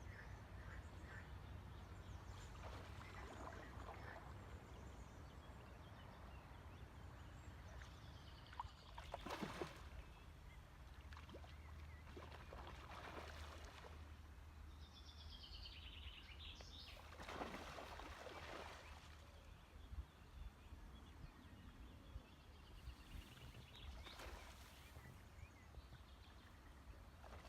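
Quiet river ambience: a handful of soft water swishes several seconds apart, like canoe paddle strokes, and one short bird chirp about halfway through, over a low steady hum.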